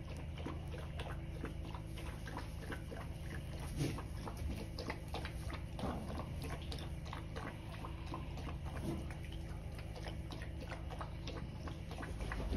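A puppy lapping water from a plastic bucket: a long run of irregular wet clicks and laps, over a steady low hum.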